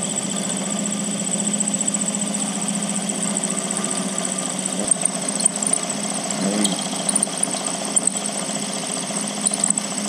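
Milling machine running, its end mill plunging into a solid aluminium block: a steady motor hum and high whine as it cuts, with scattered sharp clicks from about halfway in.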